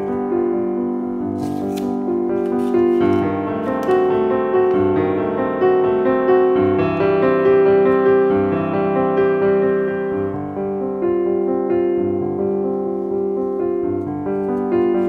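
Background music led by a piano, a continuous flow of sustained notes with no singing.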